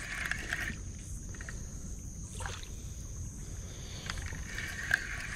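Spinning reel cranked steadily, winding in line on a hooked catfish. Crickets chirp steadily behind.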